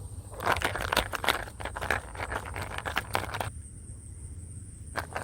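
Dense rustling and crackling with many small clicks for about three seconds, then a quieter stretch with a couple of single clicks near the end.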